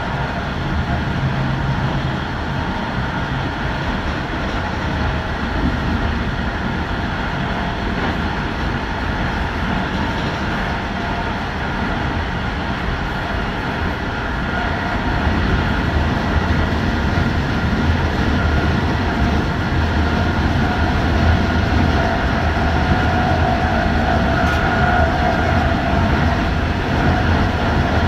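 Electric passenger train running along open track: a steady noise of wheels on rail with a faint whine of steady tones over it, growing a little louder about halfway through.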